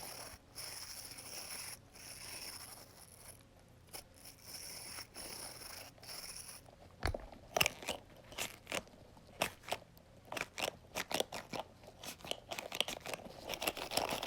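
A sensory fidget toy being handled close to the microphone: a soft rubbing hiss in short stretches, then from about halfway a quick run of irregular sharp clicks and crackles.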